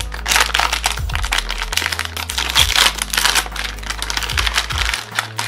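A crinkly blind-bag packet being torn open and rummaged through by hand: dense crackling and rustling with quick clicks, over background music.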